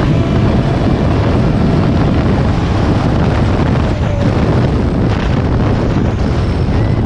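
Rock buggy's Chevy 5.3 LS V8 running loud and steady, with wind buffeting the microphone.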